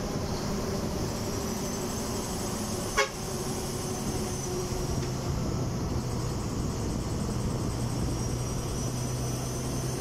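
A moving road vehicle's engine running steadily with road and wind noise as it travels along, with one short sharp knock about three seconds in.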